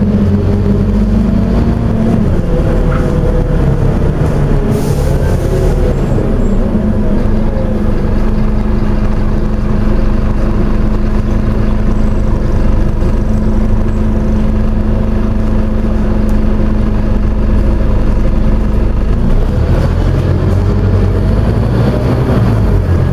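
Scania OmniCity single-deck bus heard from inside the passenger saloon while driving: a steady engine drone whose pitch shifts about two seconds in and rises and falls again near the end. A short hiss about five seconds in.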